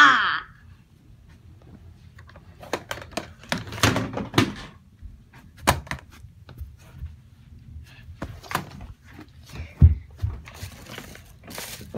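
Irregular knocks, thuds and rustling as a dog plays roughly up against a handheld phone, with a short falling squeal right at the start.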